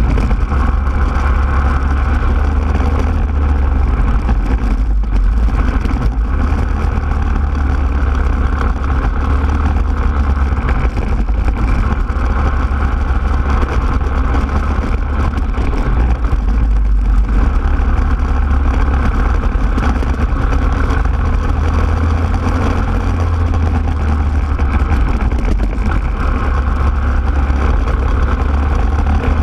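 Racing kart engine running hard at speed, heard close from the kart itself, easing briefly about five seconds in and again about seventeen seconds in before pulling hard again.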